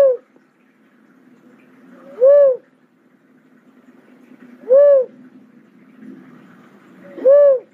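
Cuckoo-dove calling: a short, hooting coo that rises and falls in pitch, repeated about every two and a half seconds, three full calls plus the tail of one at the very start.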